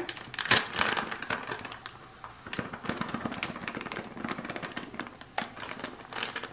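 Thin plastic spice bag crinkling and being tapped as paprika is shaken out of it: an irregular run of small clicks and rustles.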